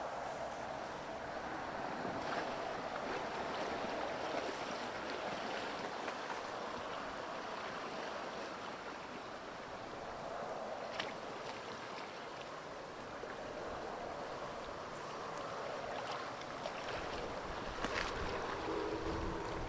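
Spring ice drift on a river: a steady hiss of fast meltwater carrying broken ice floes. A few sharp clicks of ice knock through it, about halfway and near the end.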